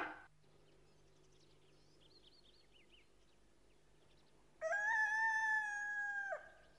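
A rooster crowing once: one long call held at a nearly steady pitch for almost two seconds, dropping away at the end. Faint bird chirps come before it.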